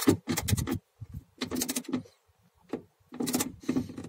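Hand ratchet and socket clicking in short bursts with pauses between, as a door check-strap bolt is tightened by hand.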